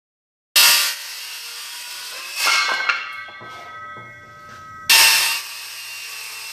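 Circular saw cutting into a wooden stair stringer. There are two cuts, starting about half a second and about five seconds in; each is loudest as the blade bites and then runs on more quietly, with a thin whine in the lull between them.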